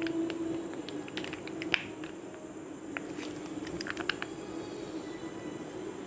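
Mayonnaise squeezed from a squeeze bottle onto pita bread, giving a few soft clicks and squelches; the sharpest comes just under two seconds in, with a few more around four seconds. A steady low background hum runs underneath.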